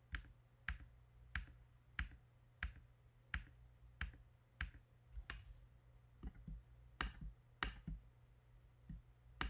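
Regular clicking at a computer, about three clicks every two seconds, over a faint steady low hum.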